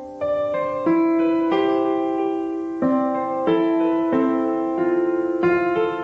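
Background music: soft piano playing slow sustained notes and chords.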